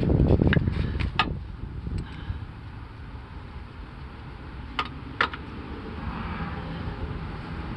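Low rumble of a car on the move, with wind on the microphone, and a few sharp, irregular clicks, the loudest about a second in and about five seconds in.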